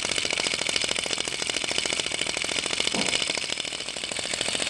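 Star Power vacuum (flame-licker) model engine running on its alcohol flame, its piston and valve gear clattering in a fast, even rhythm.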